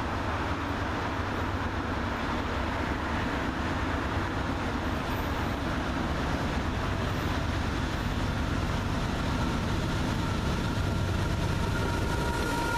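Norfolk Southern diesel freight locomotives hauling a coal train approach, a steady rumble that grows slowly louder as the train nears. Near the end, faint high tones join in as the lead units come close.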